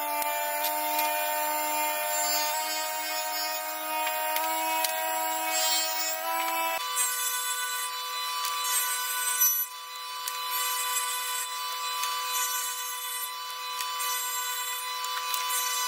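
Table saw running with a steady whine while cutting short pine blocks, with a hiss of cutting noise over it. About seven seconds in, the pitch of the whine shifts abruptly.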